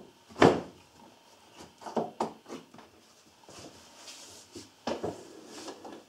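Plywood saw and shooting board being moved and set on a wooden workbench: a sharp wooden knock about half a second in, then scattered lighter knocks and rubbing.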